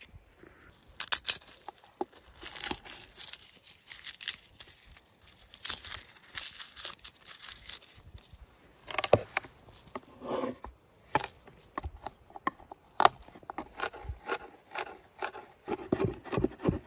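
Garlic bulb broken apart and the cloves peeled by hand: a run of crackling, rustling and tearing from the dry papery skins. Near the end, a few knocks of a knife chopping garlic on a wooden board.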